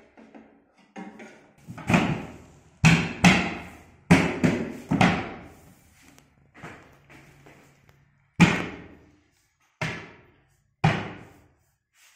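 A series of about nine sharp knocks on the flat-pack cabinet's panels during assembly, each ringing briefly. They come in a quick cluster in the first half, then three single knocks spaced a second or more apart.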